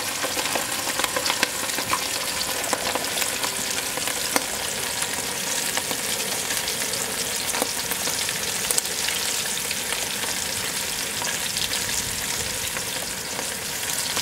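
Battered squirrel pieces deep-frying in hot oil in a wire fryer basket: a steady sizzle with a constant scatter of small pops and crackles.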